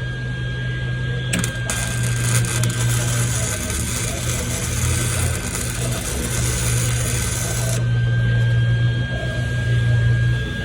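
Welding arc crackling steadily as a bolt is welded onto a lug key, starting abruptly about a second in and cutting off after about six seconds, over a steady low hum.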